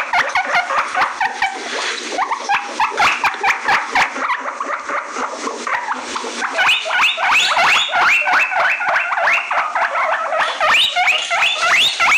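Guinea pig wheeking: a fast, unbroken run of short rising squeals, several a second, getting louder and higher about halfway through. It is the guinea pig's excited call for attention or food.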